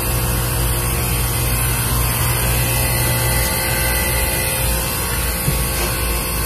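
Manitowoc Indigo series ice machine running steadily in its ice-making cycle, a continuous machine hum with a low drone. Part of the low hum eases off about halfway through. The machine is working normally after its control board was replaced.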